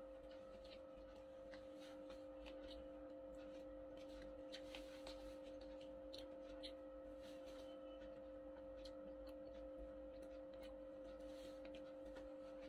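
Near silence: a faint steady hum of two low tones, with scattered soft clicks and scrapes of a metal spoon in a cardboard food bucket while eating.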